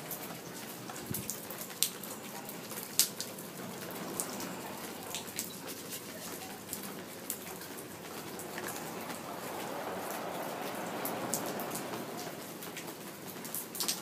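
Rain falling steadily, with scattered heavier drops striking nearby surfaces in sharp taps, the loudest two about two and three seconds in.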